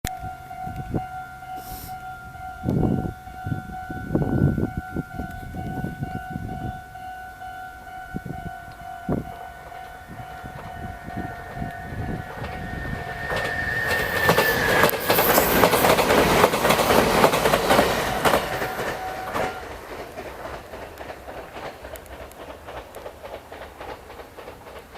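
A level crossing alarm sounds steadily while an electric train approaches, passes over the crossing with a loud rumble and clatter of wheels on rails about two-thirds of the way through, and fades away. The alarm stops just as the train has gone by.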